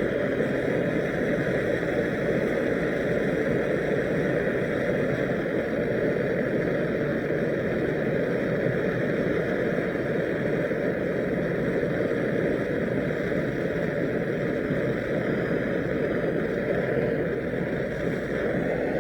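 Air-fuel Turbo Torch flame burning steadily as it heats a copper pipe joint for soft soldering: a constant, even rushing hiss, easing slightly just before the end.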